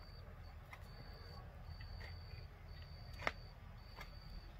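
Insects trilling: a high, thin buzz that repeats about once a second, each stretch lasting under a second. A single sharp click about three seconds in.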